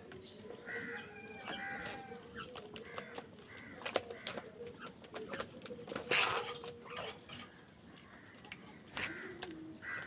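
A flock of house crows and common mynas feeding at a plastic tub: scattered short bird calls and sharp clicks and taps, with a loud burst of wing flapping a little after six seconds as two crows scuffle over the food.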